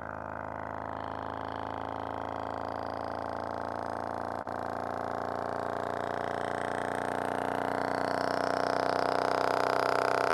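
DB Drive WDX 6.5G2 6.5-inch subwoofer playing a low bass test tone with a buzzy stack of overtones, growing steadily louder as the amplifier power is turned up. The tone drops out for an instant about halfway.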